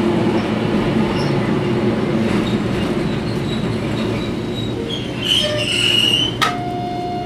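Toyohashi Railway 3500-series tram running and pulling into a stop, heard from inside the car: a steady rumble of wheels on rail, with a short high squeal about five seconds in. Near the end a sharp click is followed by a steady pitched tone.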